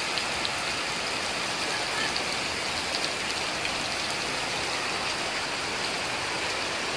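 Very heavy rain falling on clay-tiled roofs and a wet yard, a dense steady hiss with faint scattered drop taps, and water streaming off the roof eaves.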